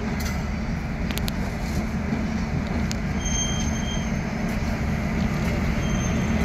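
Electric locomotive approaching slowly at low speed, with a steady low hum that grows gradually louder as it nears.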